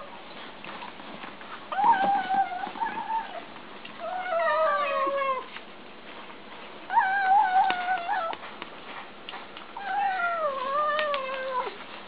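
Tabby kittens making long, wavering mewing noises while eating from a shared dish. There are four drawn-out calls, each a second or more long, and the second and last slide down in pitch.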